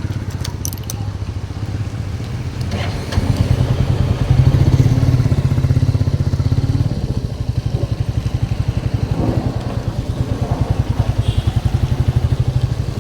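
Royal Enfield motorcycle engine running, getting louder about three seconds in, with a steady, even exhaust beat.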